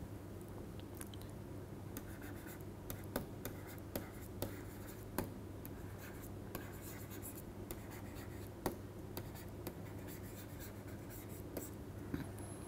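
Stylus writing on a tablet screen: scattered light taps and scratches as handwriting is entered, over a faint steady hum.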